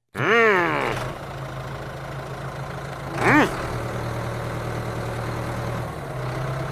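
Small engine or motor running steadily with a low hum. It opens with a loud, sliding-pitch call lasting under a second, and a shorter one rises and falls about three seconds in.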